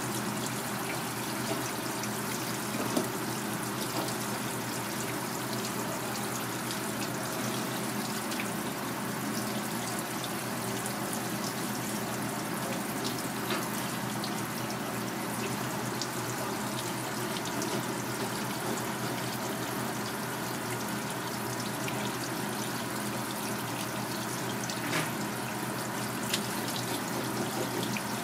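Kitchen tap running steadily, spraying water onto a fish on a plastic cutting board in a sink. A few light clicks stand out now and then.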